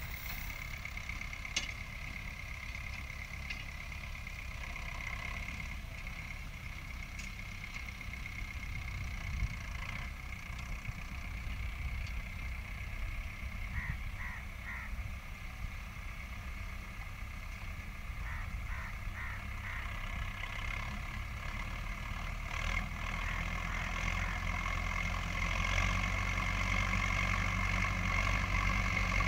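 Distant farm tractor's diesel engine running steadily as it works a field, growing louder near the end as it comes closer.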